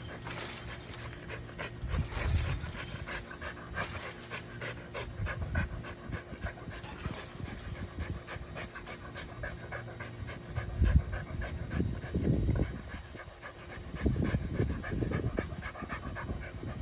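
A dog panting hard, with repeated small clicks and a few heavier low thumps as it bites and tugs at its tie-out, trying to break it loose.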